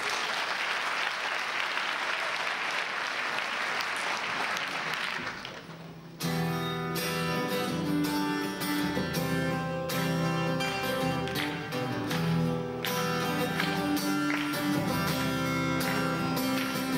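Audience applauding for about five seconds, fading out. About six seconds in, a solo acoustic guitar starts abruptly, playing chords as the intro of a song.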